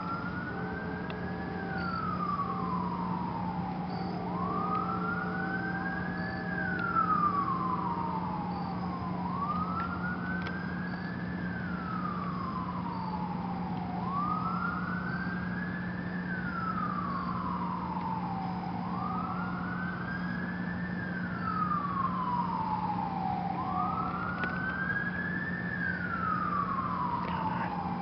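An emergency vehicle's siren in a slow wail, its pitch rising and then falling about every five seconds, six times over. A steady low hum runs underneath.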